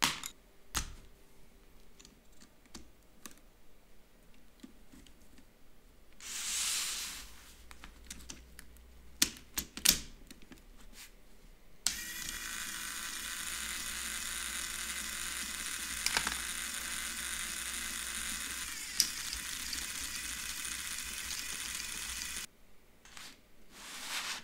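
Scattered light clicks and knocks of pencils and Lego parts being handled. About halfway through, a small Lego electric motor switches on and drives the Technic gear train of a Lego pencil sharpener with a steady whirr for about ten seconds, then stops abruptly.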